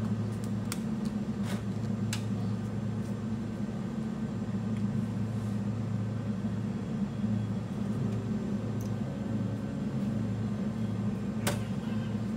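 Steady low hum of running equipment with a few light clicks, and one sharper click near the end.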